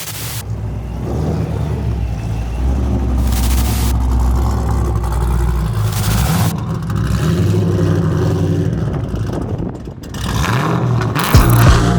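Chevrolet Camaro engine running and being revved, its pitch holding and then rising and falling, with a few short bursts of noise.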